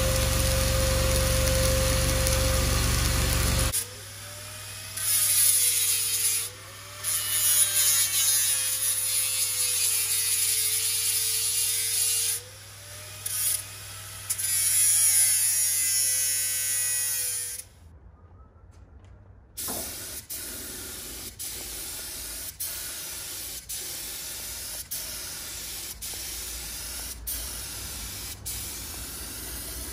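Electric arc welding on steel beams: a steady buzz, then stretches of crackling sizzle that start and stop. Later, sharp knocks repeat about one and a half times a second, like a hammer striking a beam.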